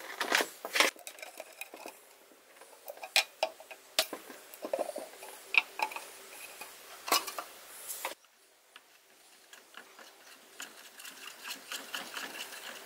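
Metal paint tin being handled and its lid pried off: a run of sharp metallic clicks and knocks. Near the end, softer ticking and scraping as a stick stirs the paint in the tin.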